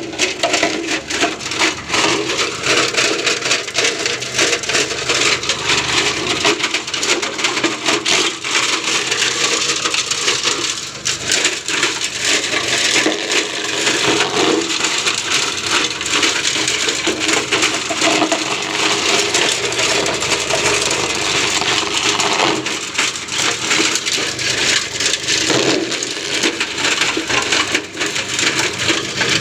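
Cocopeat grinding machine running and crushing material: a steady motor hum under continuous crackling and snapping.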